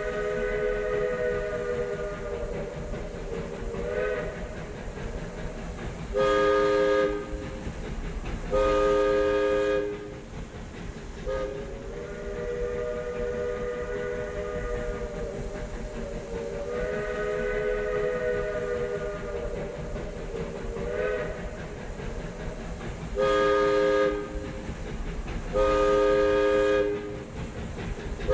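Narrow-gauge train whistles sounding chords. Long, slightly wavering notes alternate with pairs of short, louder blasts, and the pattern comes twice. A low rumble runs underneath.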